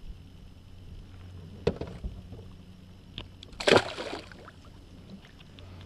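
A small bass thrown back into the lake hits the water with a short splash about two-thirds of the way through, the loudest sound here. A sharp knock comes about a second and a half in.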